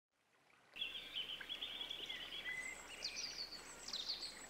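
Several wild birds singing in an outdoor ambience, starting abruptly under a second in: quick chirps and trills, with some downward-sweeping notes, over a faint steady hiss.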